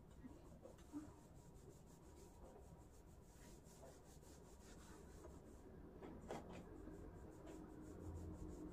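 Near silence: quiet room tone with faint rustling and rubbing, and a few small clicks, one a little louder about six seconds in.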